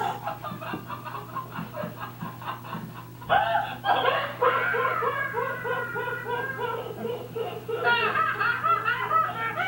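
A person laughing in quick, rhythmic pitched pulses, getting louder about three seconds in.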